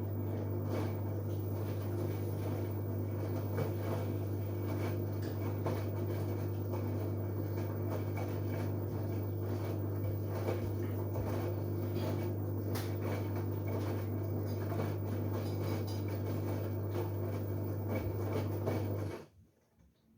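LG Direct Drive 8.5 kg washing machine running mid-cycle with a steady low hum and faint clicks, stopping abruptly near the end.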